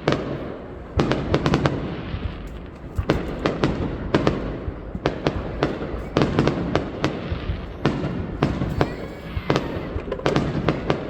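Aerial fireworks bursting overhead in quick clusters of sharp bangs about once a second, with crackling between the bursts.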